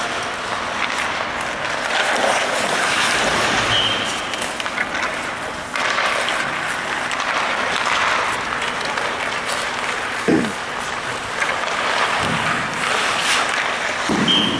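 Hockey skates carving and scraping on rink ice: a steady hiss, with a few sharp knocks.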